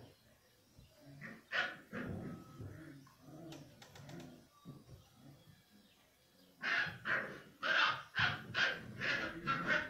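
Puppy yelping and whimpering: one yelp near two seconds in, then a fast run of short high yips, two or three a second, over the last three seconds.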